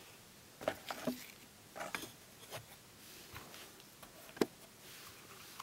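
Faint handling noises from small doll sneakers being turned in the hand and set down on carpet: a few light taps and rustles, with one sharper click about four seconds in.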